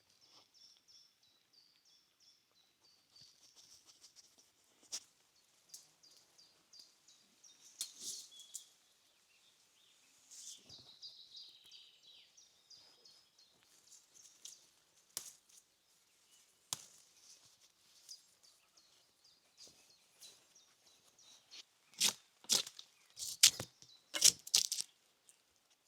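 Forest songbirds singing in quick series of high chirps, with scattered sharp clicks, and near the end a handful of loud rasping strokes on wood.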